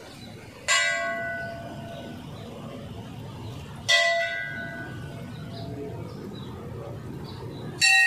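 Hanging temple bell struck three times, about three seconds apart, each stroke ringing and fading over a couple of seconds.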